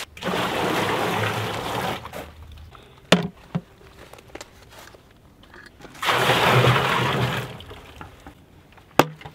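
Maple sap poured from a plastic bucket into a plastic drum, splashing in twice for about a second and a half each time, with a couple of short knocks in between.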